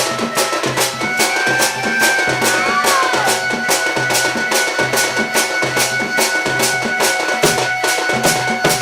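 Sambalpuri folk dance music: drums and metallic strikes keep a fast steady beat, about three or four strikes a second, under a few long held melodic notes.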